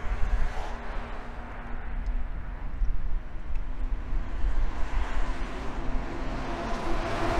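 Outdoor wind rumbling on the microphone, with a faint steady engine hum in the background near the start and again near the end.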